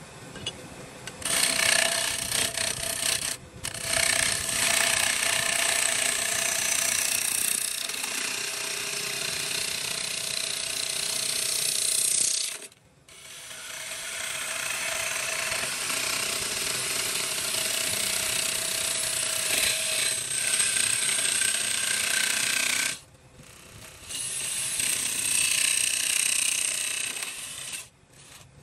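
A power tool working wood in long continuous runs, with a steady motor whine under the cutting noise. It cuts out briefly about 13 and 23 seconds in, and again near the end.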